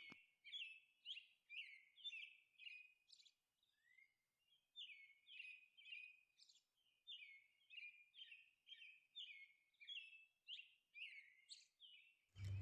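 Faint bird chirping: a series of short, high, downward-slurred chirps repeating about two to three times a second, with a brief lull a few seconds in.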